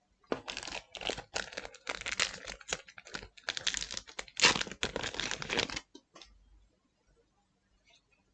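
Foil booster-pack wrapper of a trading card pack being torn open and crinkled by hand, a dense crackling rustle that stops about six seconds in.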